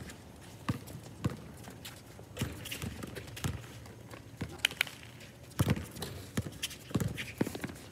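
A basketball being dribbled on a hard outdoor court: a string of separate thuds at uneven spacing, several coming close together in the last third.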